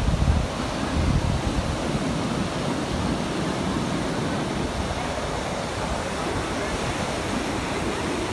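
Steady outdoor wash of wind buffeting a phone microphone, with faint crowd chatter from a boardwalk mixed in; a heavier low rumble eases off about half a second in.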